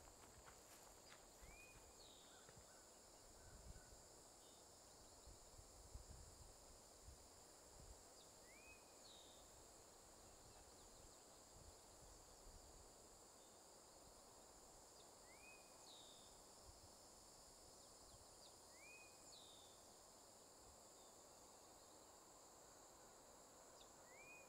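Faint woodland ambience: a steady high-pitched drone of insects, with a bird giving a short rising call five times, a few seconds apart. A few soft low rumbles come in the first several seconds.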